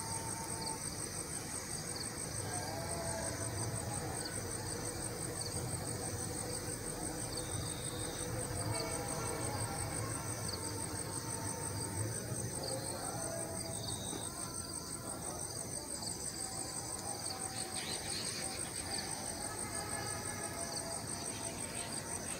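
Crickets chirping in a fast, even, high-pitched trill that never stops, over a low background hum of evening outdoor air.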